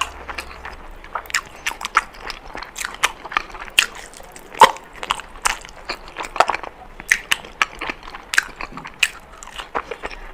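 Close-miked biting and chewing of an Indian sweet: many short, crisp crunches and clicks in an irregular run, the loudest about four and a half seconds in.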